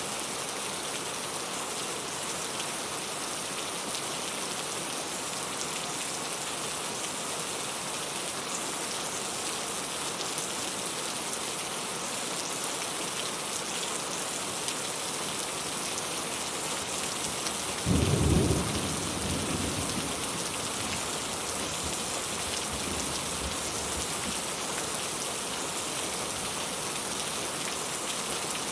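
Steady rain falling and pattering on surfaces, with a sudden low rumble of thunder about two-thirds of the way through that dies away over a couple of seconds.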